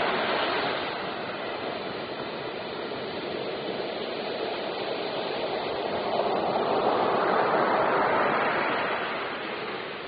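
Ocean surf: waves breaking and foaming in a continuous wash, swelling about six seconds in and easing off near the end.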